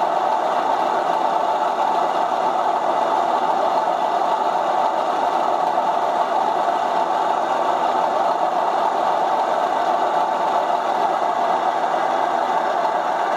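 Model diesel locomotive's DCC sound decoder playing a steady diesel engine running sound, without pause.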